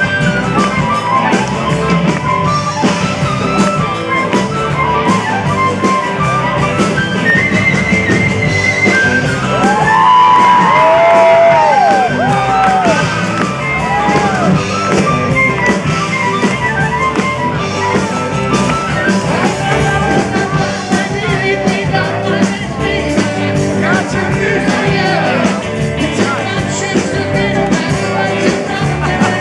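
Live rock band with a blues harmonica solo played into a hand-cupped microphone: fast runs of high notes, with swooping bent notes about ten seconds in, over the full band.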